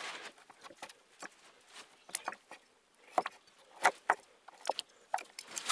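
Kitchen knife cutting the rind off a wedge of Gouda on a wooden cutting board, the blade tapping the board in scattered, irregular sharp clicks, a few louder ones past the middle.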